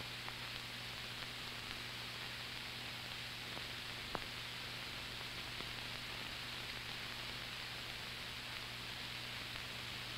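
Steady hiss and low hum of an old film soundtrack, with one faint click about four seconds in.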